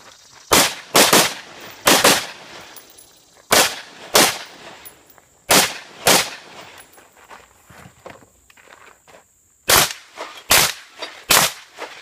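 Rifle shots fired in quick pairs and short strings, about a dozen in all, each a sharp crack with a short ring after it. There is a pause of about three seconds in the middle, and a faster string of shots near the end.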